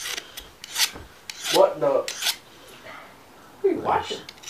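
Pruning-shear blade being rubbed with a sharpening stone in short, uneven rasping strokes. Two of them come out as squeaky scrapes, about a second and a half in and near the end.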